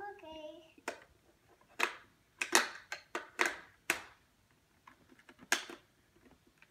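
Hard plastic toys clicking and clacking as a toddler handles them: a series of sharp, irregular clicks, some in quick pairs.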